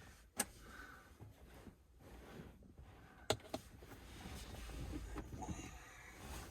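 Hands working on plastic console trim and screws: rustling and handling noise with two sharp clicks, one near the start and one about halfway.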